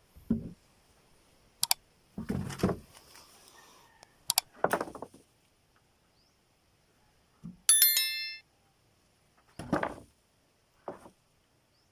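Scattered knocks, clicks and short thuds, with one bright metallic ring about eight seconds in; no saw is running.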